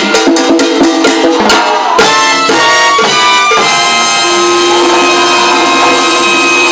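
Live salsa band with timbales and trumpets playing the close of a tune: a run of sharp accented hits, then a long held final chord from a little past halfway.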